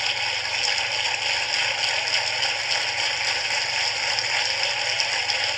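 Large audience applauding, a steady dense clapping.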